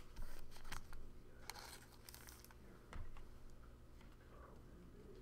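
Faint handling noises of trading cards being moved and set aside: light rustles and a few soft clicks.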